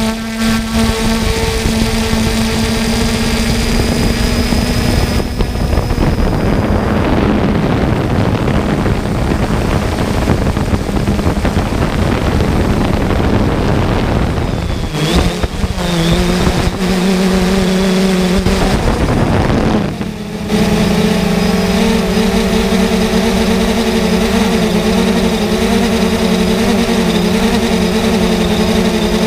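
3DR Solo quadcopter's motors and propellers humming steadily, heard through the drone-mounted GoPro. Between about 5 and 20 seconds in, a rushing noise of wind on the microphone covers the hum. After that the steady hum returns at a lower pitch.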